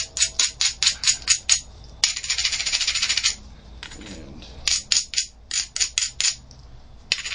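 An abrader rubbed in quick scraping strokes along the edge of a flint preform, about six strokes a second, with a longer continuous rub in the middle. This is the platform being ground up before a pressure flake is taken off it.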